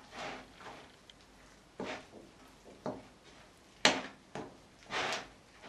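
Stiff sourdough cookie dough being stirred in a mixing bowl once the flour is in: irregular scrapes and knocks, the sharpest a little before four seconds in.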